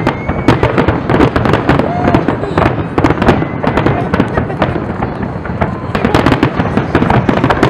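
Aerial fireworks bursting in rapid succession: a dense, continuous run of bangs and crackles with no pauses.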